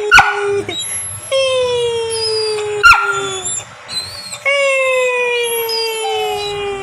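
Pet dog howling in long notes that slide slowly down in pitch, three in a row. Two sharp, loud yips break in, one just at the start and one about three seconds in.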